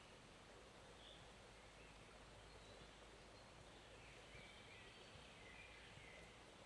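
Faint, steady rush of a forest stream, with a few faint high bird chirps about a second in and again near the end.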